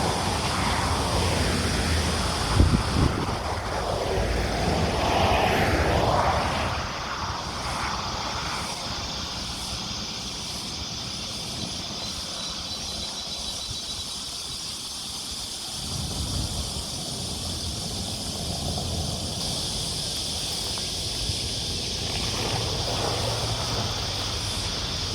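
Vehicles passing on a country road: two loud pass-bys in the first six seconds, with a brief knock about two and a half seconds in, and fainter ones later. A steady high-pitched drone sits in the background.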